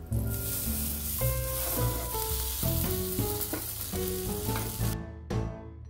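Marinated tandoori chicken sizzling steadily as it roasts on a greased perforated mesh tawa over a gas flame, with background music playing; the sound cuts off abruptly near the end.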